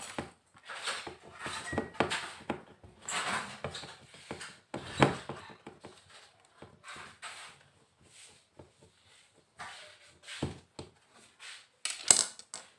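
Irregular clicks, knocks and scrapes of a screwdriver and hands working on the back casing and chassis of an LED TV being taken apart, with a sharper clatter near the end.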